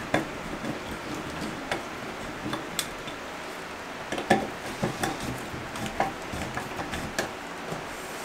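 Screwdriver driving a screw in a brushed-nickel shower valve trim, the tool tip and metal parts giving scattered small metallic clicks and taps, the loudest about four seconds in.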